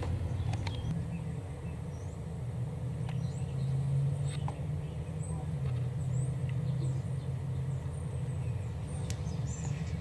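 Pet budgies giving short, faint high chirps now and then over a steady low hum.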